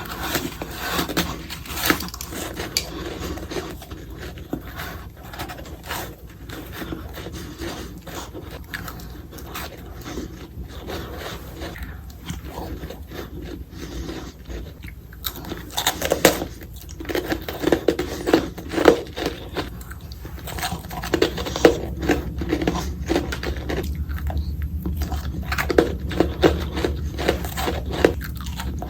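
Ice being bitten and crunched between the teeth close to the microphone: a fast run of hard, crackly crunching bites with short chewing between them, played back sped up.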